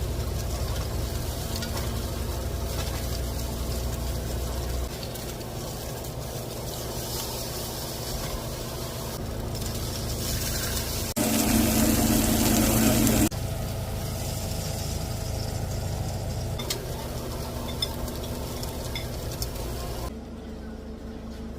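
Porterhouse steaks sizzling as they cook, in several short clips joined with abrupt changes in the sound; one stretch about eleven to thirteen seconds in is much louder.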